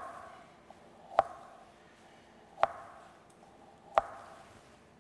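A knife slicing through a frozen roll of pepper-crust butter. Each stroke ends in a sharp knock of the blade on a plastic cutting board with a short ringing tail. There are three strokes, about one and a half seconds apart.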